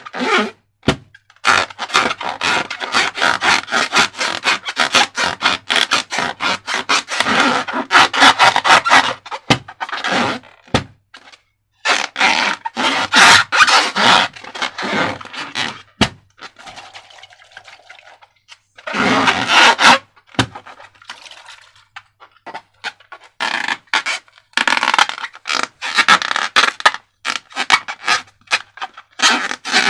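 Slime being worked by hand, a fast run of sticky clicks, crackles and scrapes in bouts, with a couple of brief quieter pauses.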